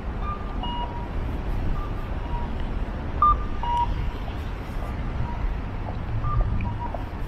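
Steady rumble of city road traffic, with short two-note electronic beeps, a higher note then a lower one, repeating about every second and a half.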